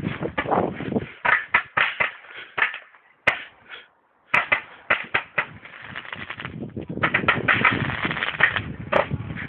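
Fireworks going off in rapid, irregular bangs and crackles, with a short lull a little before the middle, then a denser run of crackling from about seven seconds in.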